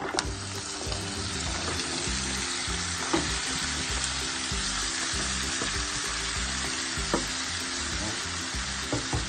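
Raw beef ribs sizzling in hot oil in a wok. The sizzle starts abruptly as the meat goes in and then holds steady, with a few sharp knocks of utensils against the pan as the ribs are stirred.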